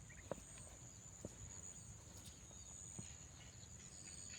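A faint, steady, high-pitched insect drone, with a few soft clicks.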